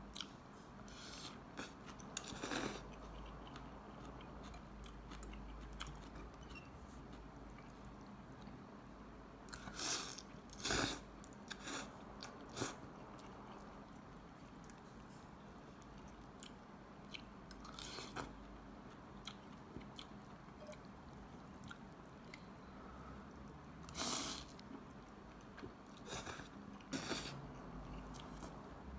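Close chewing of a mouthful of noodle soup, with scattered short louder sounds, the loudest about ten seconds in and again near twenty-four seconds.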